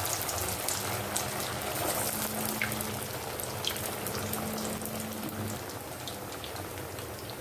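Poha kachoris deep-frying in hot oil in an aluminium kadai: a steady sizzle with dense crackling and popping as the freshly added patties bubble.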